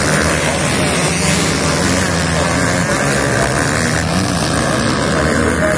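Several motocross dirt bikes racing on the track, their engines running together as one steady, loud drone.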